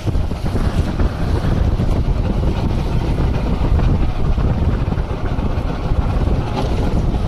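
Steady wind noise on the microphone mixed with a small fishing boat's motor running and water rushing along the hull as the boat moves slowly through a light chop.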